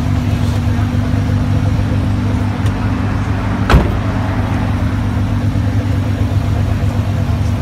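A tuned 600 bhp Nissan GT-R's twin-turbo V6 idling steadily, with one sharp knock about three and a half seconds in.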